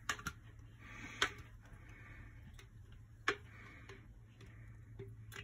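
Silicone spatula scraping fruit purée out of a blender cup into a glass jar: soft repeated scrapes, with a few sharp taps.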